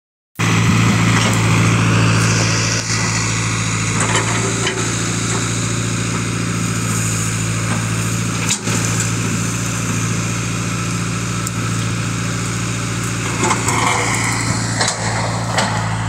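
International Harvester 3500A backhoe-loader's engine running steadily, with a few sharp knocks.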